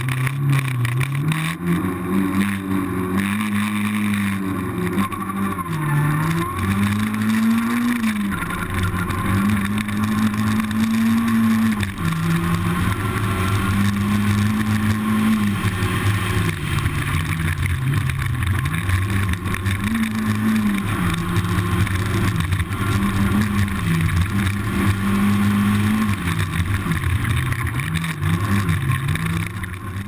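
Rally car engine running hard, its pitch repeatedly climbing, holding and falling back every few seconds as the revs rise and drop.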